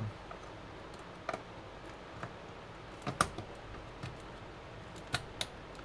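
A few sharp, scattered plastic clicks and taps from hands fitting parts inside a desktop PC case, the loudest a double click about three seconds in.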